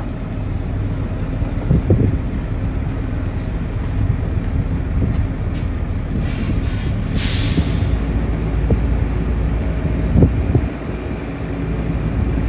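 Heavy truck's diesel engine running at low speed as the tractor unit slowly moves its lowboy trailer, with a few knocks and a burst of air-brake hiss lasting about two seconds, about six seconds in.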